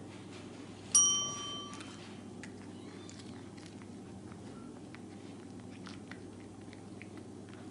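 Desk service bell struck once: a bright ding about a second in that rings on for under a second and fades. Faint light ticks and clicks follow.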